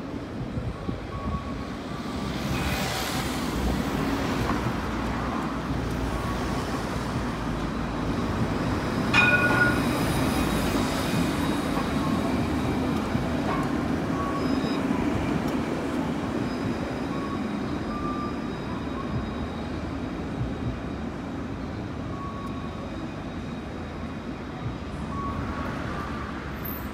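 Tram rolling away along street tracks, mixed with city road traffic, and a sharp clank about nine seconds in.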